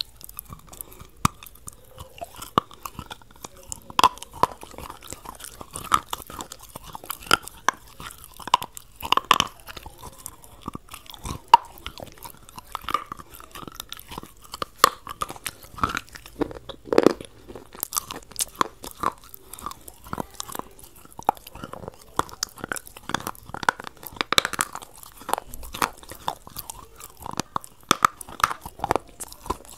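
Close-miked chewing of crispy fried food: irregular wet crunches and mouth clicks as the batter coating is bitten and chewed.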